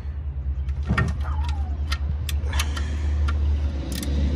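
Sharp metal clicks and taps of a 17 mm wrench on the steel oil drain plug as it is being tightened back into the oil pan, about half a dozen spread over the few seconds. A steady low hum runs underneath.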